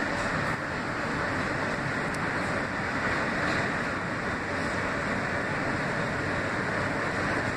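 Kawasaki R160B subway car running at speed, heard from inside the car: a steady rumble and hiss of wheels on the rails.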